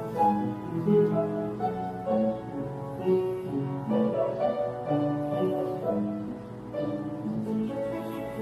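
Small choir singing slow, held chords with instrumental accompaniment.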